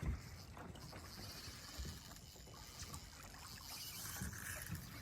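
Faint ambience of a fishing boat on a river, with a few soft low thumps.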